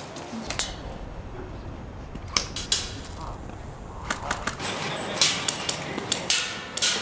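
Airsoft guns firing during a game: scattered sharp snaps of shots, in small clusters about half a second, two and a half, four and five seconds in, and several in quick succession near the end.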